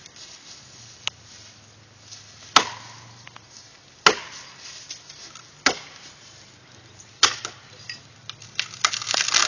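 Axe chopping into the trunk of a standing tree: four hard strikes about a second and a half apart, after a lighter one. Near the end come quick sharp cracks and a swelling rush as the cut-through trunk gives way and the tree starts to fall.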